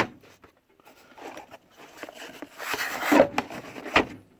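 Drawer of a Snap-on KRA steel tool chest sliding on its runners with a scraping rattle about three seconds in, then a sharp knock near the end as it stops.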